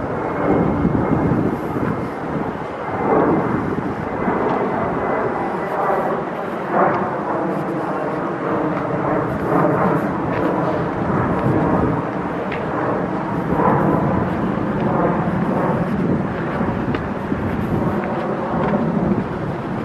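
Airplane flying over, a steady engine drone carrying several held tones that are strongest through the middle, with footsteps on a dirt path.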